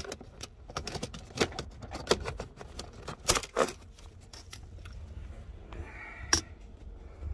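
Hard plastic centre-console side trim panel of a Holden Commodore VE being pried and pulled off with a plastic trim tool: a series of sharp plastic clicks and snaps as its retaining clips let go, with the loudest snaps a little past three seconds in and again near the end.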